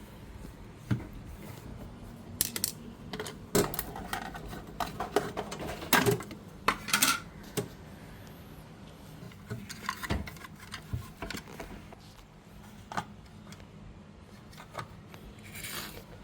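Irregular clinks and knocks of hard, partly metallic objects being handled, busiest in the first half and thinning out later, over a faint low steady hum.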